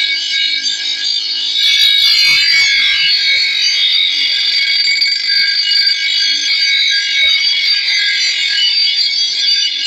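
Power grinder's abrasive disc grinding the steel edge of a long bolo knife being sharpened: a continuous high-pitched grinding whine.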